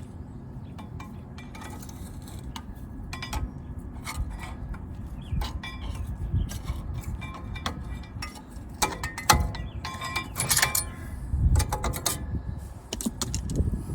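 Irregular metallic clinks and scrapes as worn-out front brake pads are worked out of a truck's disc brake caliper bracket. The clinking gets busier and louder about two thirds of the way through.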